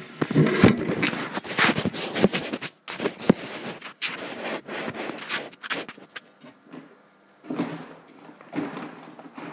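Irregular rustling and scraping of paper sheets with scattered knocks as the camera is handled and set down. It is busiest in the first three seconds and quieter after about six.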